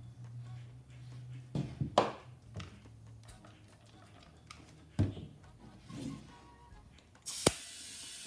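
Sharp cracks and thunks from a tire being inflated onto a steel wheel, three loud ones about 2, 5 and 7½ seconds in, the last the loudest, as the beads seat. Compressed air hisses steadily into the tire near the end.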